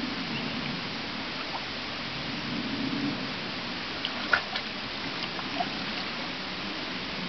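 Shallow water running steadily over rocks, broken a little past halfway by a short cluster of sharp splashes as European otters play and tussle in the water, one splash much louder than the rest.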